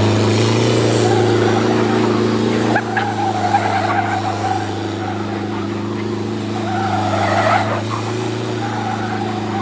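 The 2.2 L turbo-diesel from a 1983 Ford Ranger, powering a motorized picnic table, running loud at a steady high engine speed while the tires scrub and skid through donuts.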